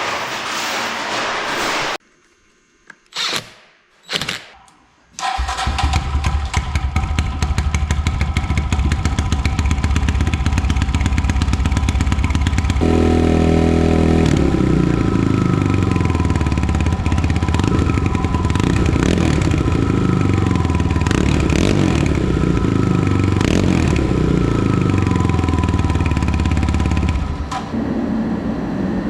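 A small off-road vehicle's single-cylinder four-stroke engine starts after a few short clicks and runs steadily at a fast idle, its pitch stepping up partway through and easing off near the end. It is run to circulate and fill a freshly changed oil filter.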